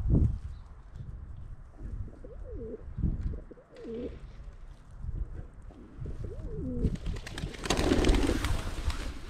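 Feral pigeons cooing while they feed, several short rising-and-falling coos. Near the end the flock takes off all at once in a loud flurry of wingbeats.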